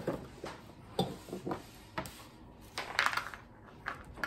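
A plastic cutting board being handled and set down on a kitchen counter: a string of short knocks and scrapes, with a louder clatter and scrape about three seconds in.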